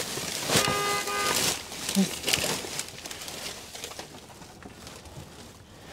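Rummaging through junk in a dumpster: rustling and knocking of boxes, bags and household items being shifted. A short steady pitched tone comes about a second in. The handling dies down over the last couple of seconds.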